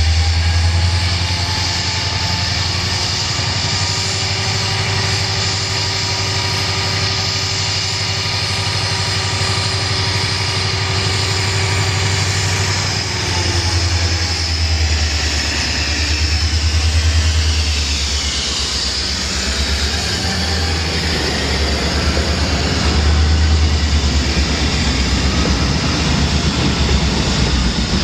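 Union Pacific GP40N diesel-electric locomotive running with a steady low engine drone as it rolls slowly by. In the second half the engine note swells twice, and the rumble of the train rolling on the rails grows under it.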